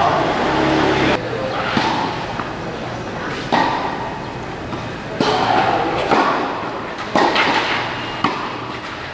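Tennis racquets striking the ball in a doubles rally on a clay court: sharp pops every second or two, each echoing under a large covered roof, with people's voices in the background.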